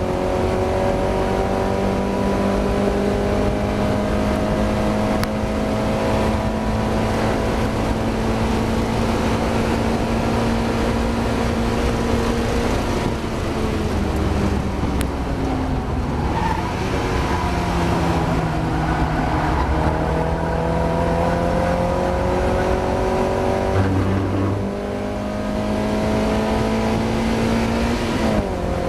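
Mazda MX-5 race car's engine at racing speed: the note climbs slowly through a long pull in gear, drops about halfway through as the car slows and changes down, then climbs again and drops once more near the end. The title reports a poor misfire in this race.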